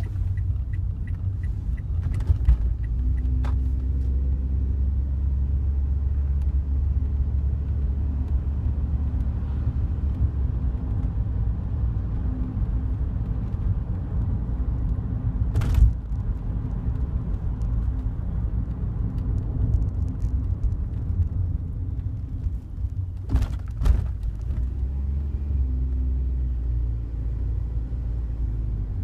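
Daihatsu Wake cabin noise while driving: a steady low road and engine rumble, broken by a few sharp clicks or ticks, the loudest about halfway through. The clicks fit the rattle from the passenger-side dashboard, which gets louder with vibration.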